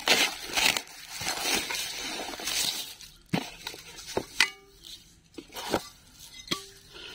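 Plastic wrap crinkling as it is pulled off Larah opal-glass plates, then a few sharp clinks of the opal glassware knocking together, some ringing briefly.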